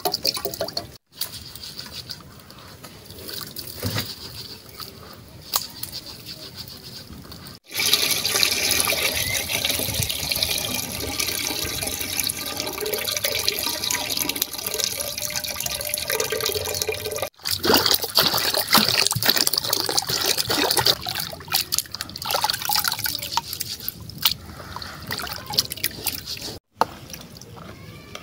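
Water pouring, trickling and splashing as sesame seeds are washed: the wash water is poured from a plastic basin through a wire mesh strainer into a metal pot, and the wet seeds are stirred by hand. The sound breaks off abruptly a few times.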